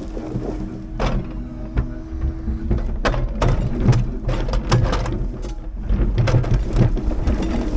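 Timber truck's loader crane handling birch logs: the engine runs steadily under a held tone while the logs knock and clatter against each other, the knocks coming thick and fast in the second half.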